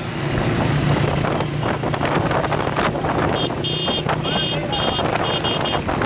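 Many motorcycle engines running together in a moving pack, with wind buffeting the microphone. From about halfway through, a high-pitched electronic beeping repeats in quick groups.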